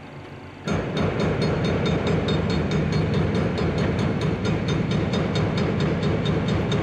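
Heavy demolition machinery starts suddenly about a second in and runs loudly, with a rapid, regular clatter of about five or six strokes a second.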